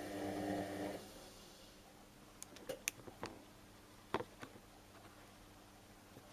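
Whirlpool washing machine's drum motor running with a steady hum, stopping about a second in; then a pause broken by a few light clicks and knocks. This is the stop-and-start tumbling of a cotton wash cycle at 60 °C.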